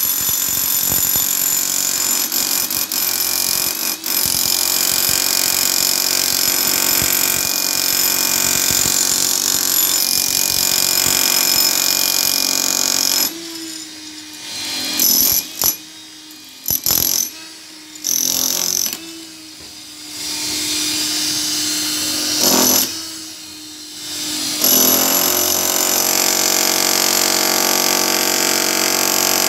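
Electric demolition hammer chiselling into a reinforced concrete wall, running steadily, then stopping and starting in several short bursts through the middle before running steadily again near the end.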